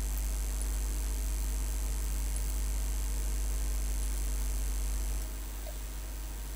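Steady low electrical hum with background hiss, the noise floor of the recording setup; it drops noticeably in level about five seconds in.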